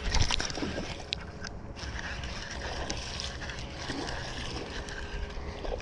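Wind rumbling on the microphone over a steady wash of water noise, with a few sharp clicks, while a hooked bass is being fought on rod and reel.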